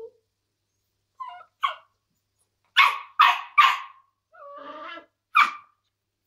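Nine-week-old smooth collie puppy barking: two small yips, then three loud, sharp barks in quick succession, a softer drawn-out whine, and one more bark near the end.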